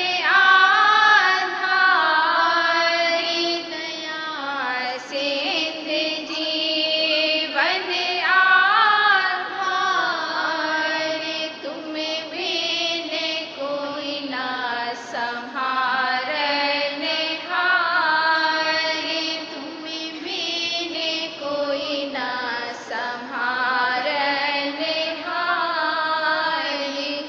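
A woman singing a slow Radhasoami devotional hymn (shabd), her voice held on long notes that glide and ornament between phrases.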